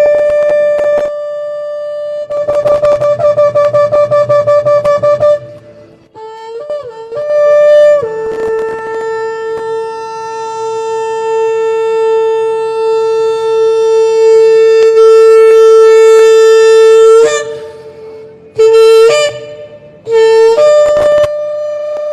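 Shofar (ram's horn) blown loudly in a series of calls: a short blast, a passage of rapid stuttering pulses, a long steady blast held for about nine seconds, then short blasts near the end. The pitch jumps between two notes, the horn breaking up to the higher one.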